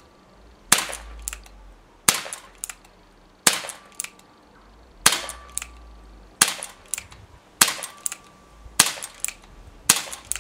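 Smith & Wesson 586 CO2 air pistol firing single action: eight sharp shots about one and a half seconds apart. Before each shot there is a fainter click as the hammer is cocked by hand, which turns the pellet magazine on to the next chamber.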